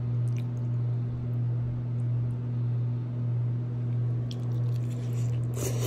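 Faint wet squishing of soft fried egg and instant ramen noodles being lifted out of the broth with chopsticks, over a steady low hum. A louder rustling squish comes near the end.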